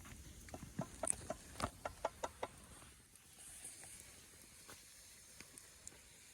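A spoon tapping and clinking lightly, a quick run of about ten clicks in the first two and a half seconds, then a few scattered faint ticks, while pizza sauce is spooned and spread onto naan bread.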